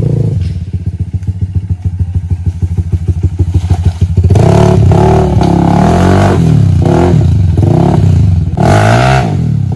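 Hero XPulse 200's single-cylinder engine running with an even, low-throttle chug, then revved hard in repeated rising and falling surges from about four seconds in as the bike is ridden up out of a deep muddy rut.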